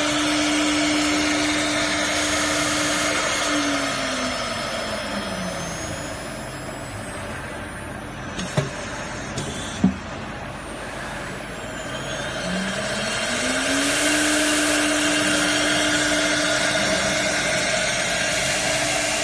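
Electric spindles of a three-spindle CNC router running over cutting noise, with a steady whine. About four seconds in, the whine falls in pitch as a spindle spins down. Two sharp clacks come near the middle, and about two-thirds of the way through the whine rises again as a spindle spins back up.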